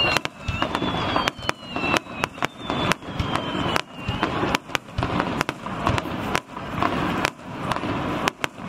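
Aerial firework shells bursting overhead in a rapid, irregular series of sharp bangs. A high whistle falls slowly in pitch during the first half.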